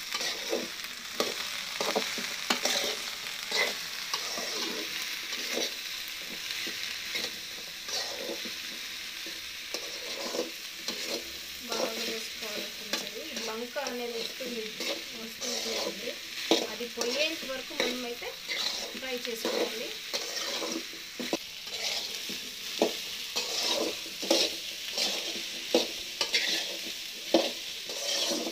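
Chopped okra sizzling in a little oil in a metal kadai, stirred with a metal spatula that scrapes and knocks against the pan again and again over a steady sizzle.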